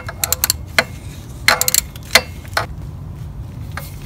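Socket ratchet clicking in short bursts and single clicks as the alternator bracket bolt is tightened.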